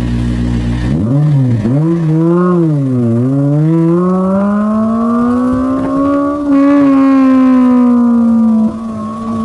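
Honda S2000's four-cylinder engine through its F1 exhaust, pulling away: the note rises and falls twice, then climbs steadily through a long pull and levels off at a held speed.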